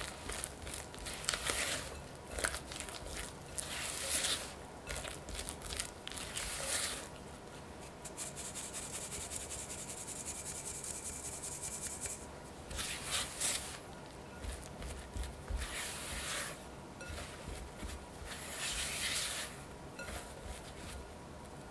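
Silicone spatula folding thick muffin batter in a glass bowl, a run of short wet scraping strokes. About eight seconds in, flour mixed with strawberry powder is sifted through a metal mesh sieve into the bowl, a soft steady hiss lasting about four seconds, and then the folding strokes start again.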